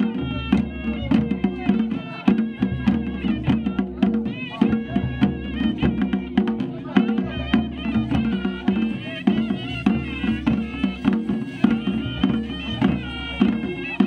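Traditional Himachali folk band playing: a reedy, wavering wind-instrument melody over steady drumming.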